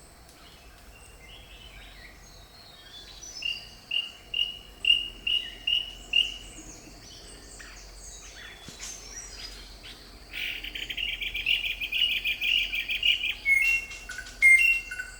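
Forest birds calling: a run of about seven evenly spaced whistled notes, later a fast high trill, then falling two-note calls near the end.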